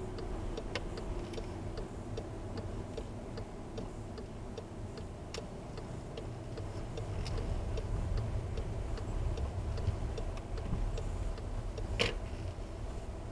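Car turn-signal indicator ticking steadily, about three ticks a second, heard inside the cabin over the low rumble of the car driving on a wet road. A single louder knock comes near the end.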